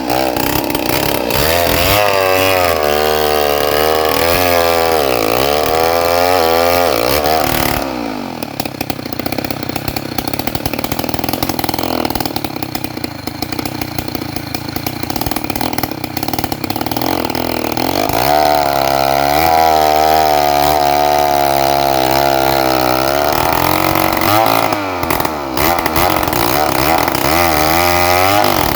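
Stihl 070 two-stroke chainsaw cutting trembesi (rain tree) wood lengthwise, its engine pitch wavering as the chain bogs and recovers under load. About eight seconds in it drops quieter and lower for around ten seconds, then comes back up to full revs.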